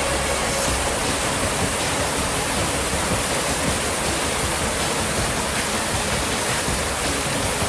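Turbulent floodwater of a swollen hill river rushing and churning through a breached embankment, a steady, even rushing noise.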